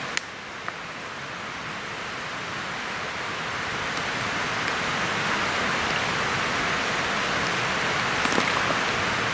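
Steady rushing hiss of a river running high and muddy after rain, growing gradually louder, with a few faint clicks near the end.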